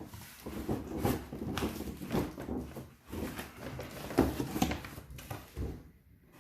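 Cardboard box and packaging being handled and shifted, with irregular rustling and knocks; the loudest knock is a little past the middle.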